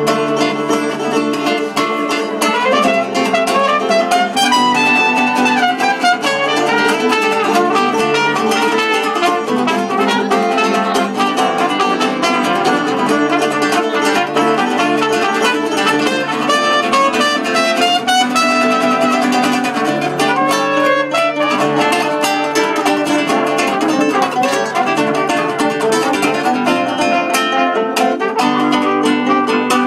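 Live acoustic band playing steady instrumental music: an acoustic guitar and a small plucked string instrument strumming and picking, with a melody line moving over them.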